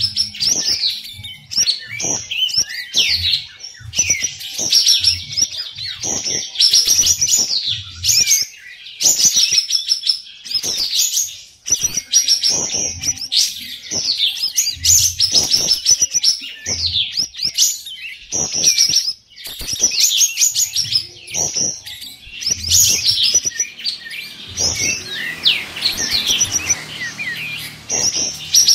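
Kapas tembak bulbuls singing in fast, dense song phrases that overlap almost without a break, mixed with frequent soft low thumps.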